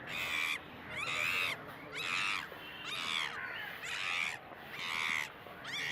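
An animal calling over and over, a short harsh call about once a second.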